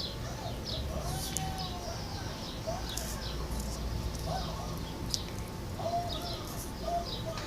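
Birds calling: short high chirps scattered throughout, along with several brief low cooing notes that bend up and down, over a steady low hum.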